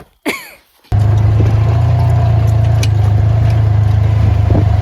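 A vehicle engine running: a loud, steady low rumble that starts abruptly about a second in, preceded by a brief gliding sound.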